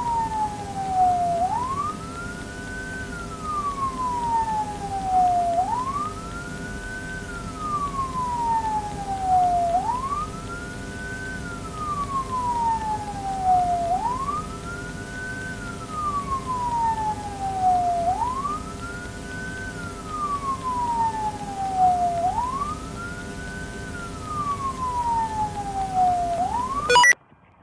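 Police siren wailing, each cycle sweeping quickly up and then slowly down, repeating about every four seconds over a steady low hum. It cuts off suddenly near the end.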